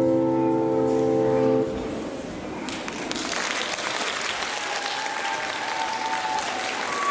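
The song's accompaniment ends on a held chord about one and a half seconds in. After a short pause, audience applause starts and keeps going.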